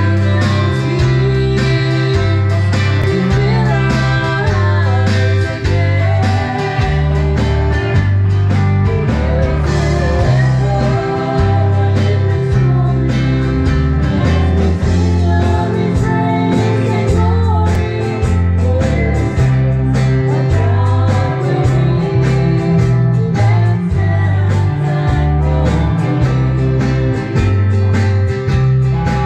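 A small band playing a country song live: electronic drum kit keeping a steady beat, electric guitars and bass, with a singer's voice over them.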